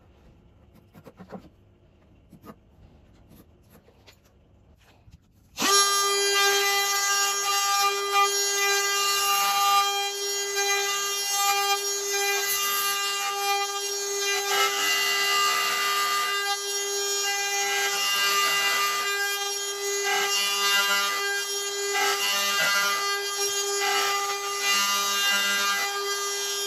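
Faint taps and scratches while the mortise is marked out, then about five and a half seconds in a DeWalt compact router comes in at full speed with a steady high-pitched motor whine. The whine wavers as the bit cuts a shallow hinge mortise in the edge of a plywood board.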